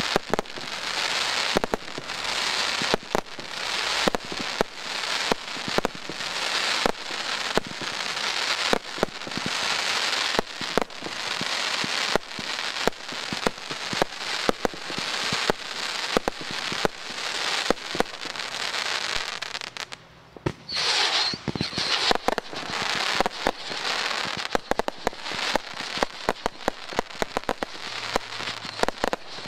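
Daytime fireworks bursting overhead: a dense, rapid barrage of bangs and crackling. About twenty seconds in it eases off for a moment, then a short hiss comes before the bangs resume.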